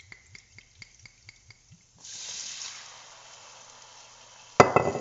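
White wine poured into a hot pan of butter-coated arborio rice: a quick run of small ticks, then about two seconds in a sudden loud sizzle that eases into a steady hiss as the wine starts cooking into the rice. Near the end a sharp knock.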